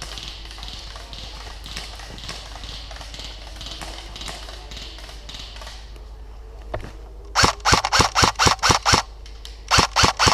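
Airsoft electric rifle firing rapid shots: a quick string of about nine sharp cracks, roughly five or six a second, starting about seven seconds in, then a second string near the end. Before that, only a steady background hiss with faint ticks.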